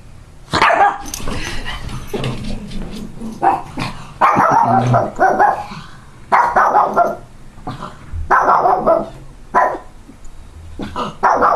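A pug huffing: a string of short, breathy huffs, close to one a second.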